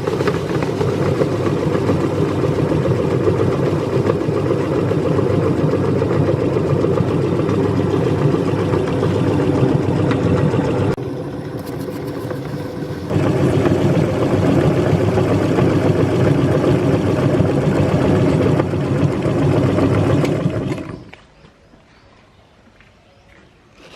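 Electric meat grinder motor running steadily as it grinds cookies. Its sound drops for about two seconds a little before halfway, comes back, then cuts off a few seconds before the end.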